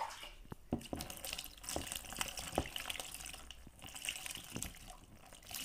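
Water poured from a small bowl over a shampooed rabbit in a plastic tub, splashing and dripping into the tub in irregular small splashes as a hand works the wet fur: the shampoo being rinsed off.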